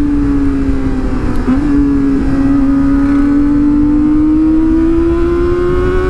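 Kawasaki motorcycle engine pulling at high revs, its pitch climbing slowly and steadily, with a brief dip about a second and a half in. Wind rumble sits on the microphone.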